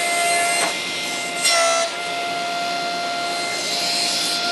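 Table saw running with a steady motor whine as a square of MDF on a circle-cutting sled is fed into the blade to trim off a corner. The whine gets briefly louder and dips in pitch about one and a half seconds in.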